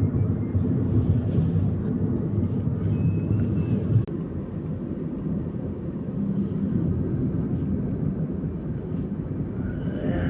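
Steady low drone of a fixed-wing aircraft in flight, engine and airflow noise without change in pitch; it drops slightly about four seconds in.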